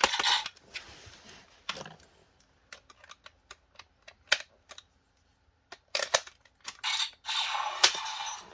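Plastic clicks from a Gokai Saber toy sword being handled and its buttons pressed, with short electronic sound-effect blasts from its built-in speaker at the start, about six seconds in, and from about seven seconds on.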